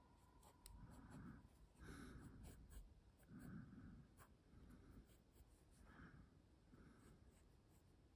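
Very faint sketching strokes: a few short, soft scratches a second or two apart, with light ticks in between.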